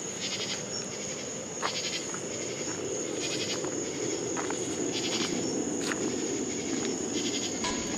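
Night insects: a steady high trill with rhythmic chirping pulses about every one and a half seconds, over a low steady rumble.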